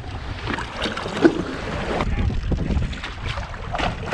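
Wind buffeting the microphone and water splashing against a kayak at sea, with scattered small knocks and one sharper knock about a second in.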